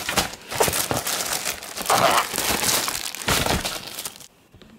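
Plastic courier mailer bag crinkling and crackling as it is handled and pulled open, a dense run of sharp crackles that stops about four seconds in.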